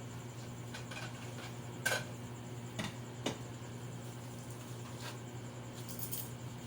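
A few light clicks and taps, the sharpest about two, three and three and a half seconds in, over a steady low hum.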